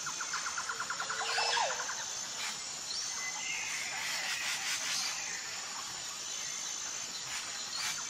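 Wild birds calling: a fast ticking trill with a short wavering call in the first two seconds, then a faint thin whistle, over a steady high-pitched background hiss.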